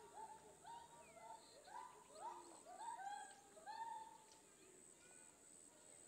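Near silence, with a series of faint short chirps, bird-like, over the first four seconds.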